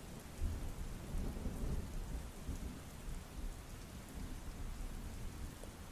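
Rain sound effect: steady rain hiss with a low rumble of thunder underneath.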